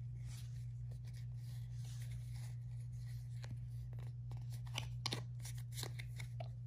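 Soft clicks and rustles of a stack of freshly opened Pokémon trading cards being slid and rearranged by hand, over a steady low hum.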